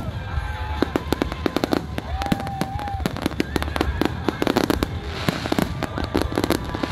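Fireworks going off: an irregular, rapid run of sharp bangs and crackling pops, several a second.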